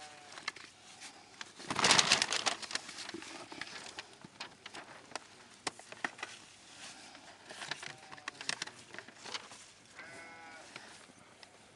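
Paper rustling and plastic crates clicking as fruit is packed, loudest about two seconds in. Livestock bleat a few times: a short quavering call at the start, another about eight seconds in, and one near the end.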